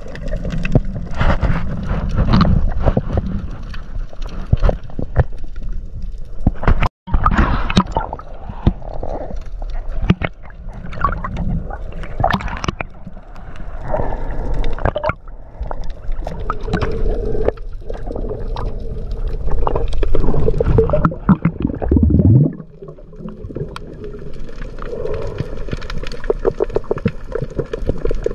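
Muffled water sounds picked up by an underwater camera: gurgling and sloshing with frequent irregular knocks and clicks.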